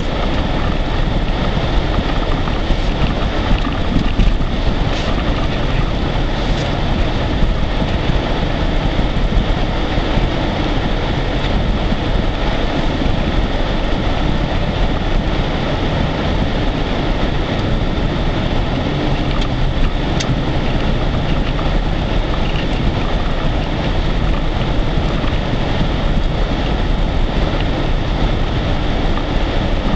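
Ford Expedition on 33-inch tyres pushing through deep snow, heard from inside the cab: a steady, loud rush of the engine working, tyres churning and snow dragging along the underside of the truck.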